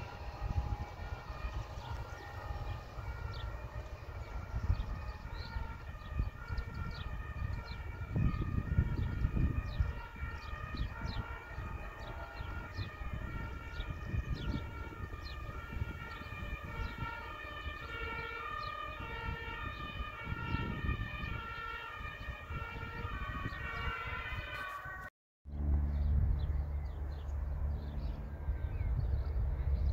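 Two-tone emergency vehicle siren, alternating evenly between a high note and a lower note and growing louder, over a low outdoor rumble. It cuts off about 25 seconds in, and a low steady hum follows.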